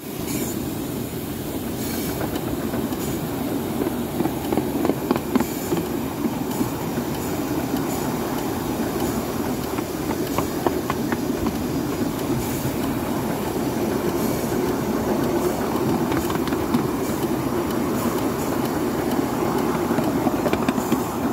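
Miniature 7¼-inch gauge steam locomotive running along the track, its wheels rumbling on the rails with irregular clicks over the rail joints, heard from close to the wheels.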